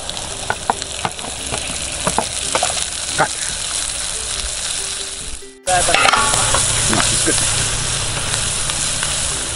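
Sliced onions, peppers and green onions sizzling in hot butter in a frying pan, with a few light knocks and scrapes as they are tipped in and stirred with a wooden spoon. The sizzle drops out for an instant about halfway through and comes back louder.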